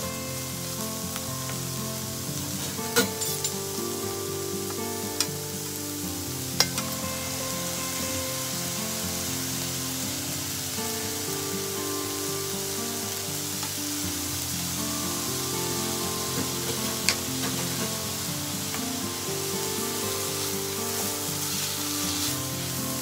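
Shredded carrots sizzling steadily in a nonstick frying pan as they are stir-fried with cooking chopsticks. A few sharp clicks of the chopsticks against the pan come through the sizzle.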